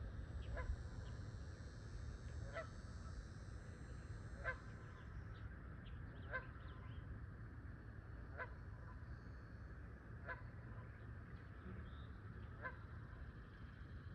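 A goose honking over and over, a short call about once every two seconds, over a steady low rumble.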